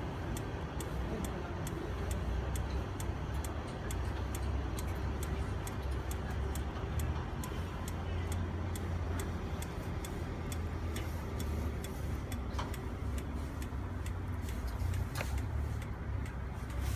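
Magna Wave PEMF machine pulsing through its loop coil: a steady train of sharp clicks, about two to three a second, over a low steady rumble.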